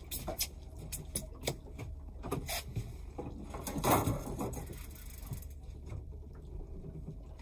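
Short knocks and clicks of gear being handled on a fishing boat while a conger eel is brought to the rail, the loudest about four seconds in, over a low steady hum.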